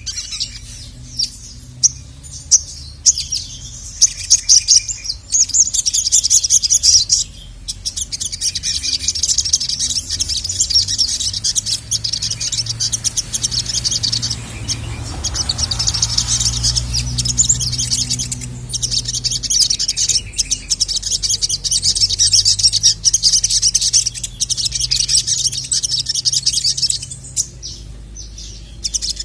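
Sogok ontong (spiderhunter) singing fast, high-pitched chattering song in long unbroken runs with a few short pauses.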